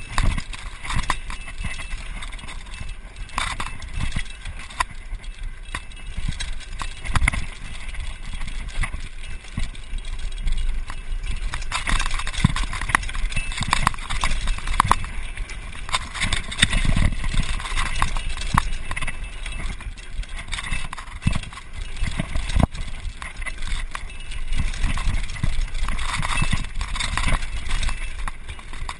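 Mountain bike riding fast down a rough dirt-and-gravel trail: tyres running over loose stones and the bike rattling, with many sharp knocks from bumps, over a steady low wind rumble on the microphone.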